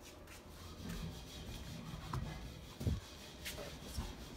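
Quiet rubbing and shuffling from a handheld phone being moved about, with a few soft knocks.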